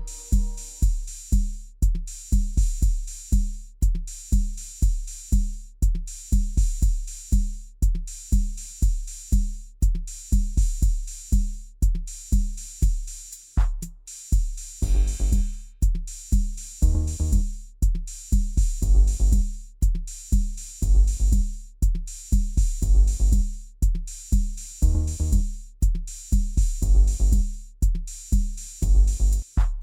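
Instrumental rock music: a steady, even drum beat, with bass and chord notes coming in about halfway through.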